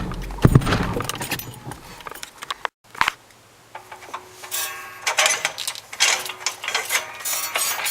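1994 Audi 80 giving uneven low knocks and metallic jangling rattles over a faint steady engine hum; the sound drops out briefly about three seconds in. The cause is broken engine mounts.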